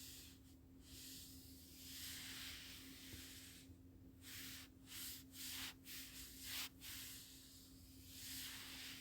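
Faint hissing noise that swells and fades irregularly, with several short bursts in the middle, over a low steady hum.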